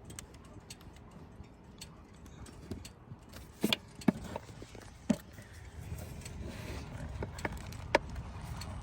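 Scattered sharp plastic clicks and taps, the loudest a few seconds in, as a hose connector clip on an evaporative emissions purge valve is squeezed and worked loose, over a steady low rumble.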